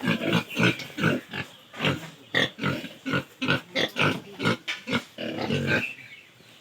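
Pigs grunting: a steady run of short, irregular grunts, about two or three a second, with a longer drawn-out grunt about five seconds in.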